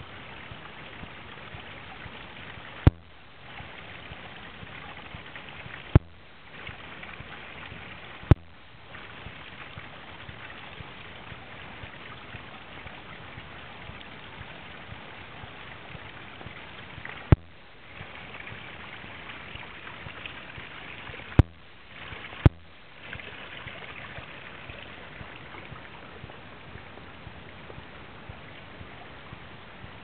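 Pool rock waterfall splashing steadily into the pool: an even rushing noise. Six sharp clicks cut through it, each followed by a brief dip in the water noise.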